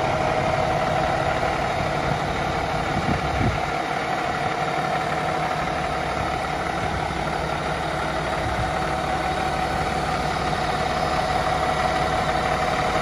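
Motorhome's Cummins ISX inline-six turbodiesel idling, a steady, even running hum.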